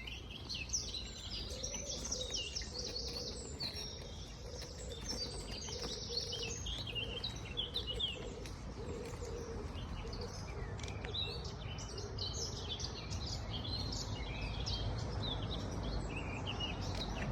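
Several wild songbirds chirping and singing, a busy run of short high calls that thins out for a few seconds in the middle and picks up again, over a steady low rumble.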